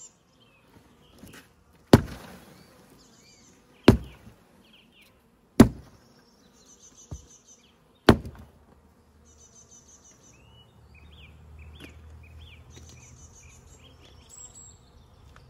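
Four hard knocks on an upside-down cardboard box, a second or two apart, knocking a small swarm of honeybees down into a hive box. Afterwards comes a low, steady hum from the bees.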